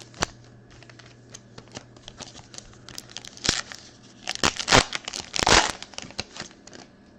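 Foil trading-card pack being torn open and its wrapper crinkled: a run of small crackles and rips, loudest in several rasping tears in the second half.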